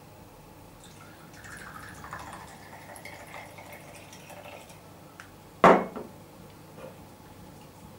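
Liquid poured from a small glass bottle into a shot glass: a faint trickle whose pitch rises slightly as the glass fills. About five and a half seconds in, a single sharp knock as the glass bottle is set down on the counter.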